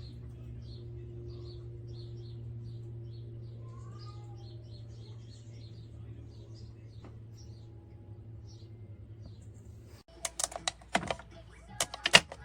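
A steady low hum with faint, quick high chirps over it. About ten seconds in the hum cuts off and a run of sharp clicks and taps begins.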